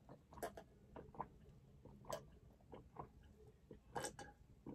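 Faint gulps and swallows as a person drinks Coke from a paper cup: a string of short, irregularly spaced mouth sounds.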